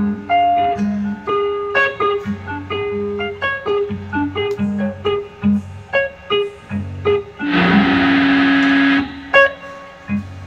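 Live electric guitar playing short, choppy picked notes in an improvised noise-rock style. About two-thirds of the way through comes a loud burst of harsh noise over one held note, lasting about a second and a half, before the choppy notes return.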